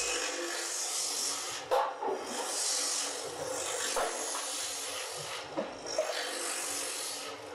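Brake-shoe lining grinding machine running: a steady rasping hiss of the friction lining being ground as the shoes are carried through on its chain feed conveyor. A few sharp clinks come as metal brake shoes are set onto the conveyor.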